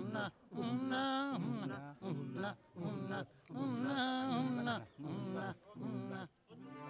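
A voice chanting in a sing-song way: short rhythmic phrases with pauses, and two longer held notes that waver in pitch.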